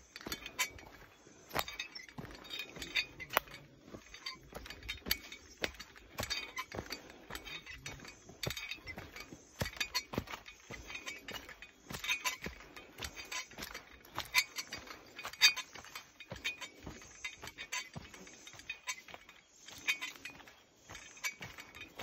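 Footsteps crunching through dry leaf litter and twigs on a forest path: irregular crackles and snaps in quick clusters.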